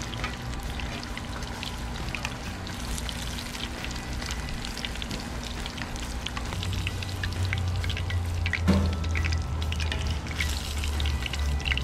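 Breaded catfish fillets deep-frying in hot oil in a cast iron skillet: a steady crackling sizzle. A low rumble comes in a little past halfway, and a single sharp knock sounds about two-thirds of the way through.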